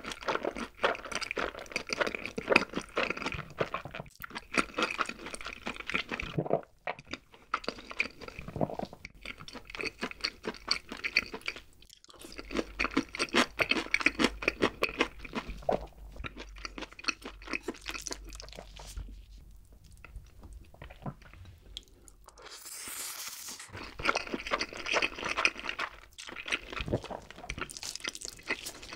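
Close-miked mouth sounds of someone chewing a large mouthful of food, with many small crunches and wet smacks in an irregular stream that eases off for a few seconds past the middle.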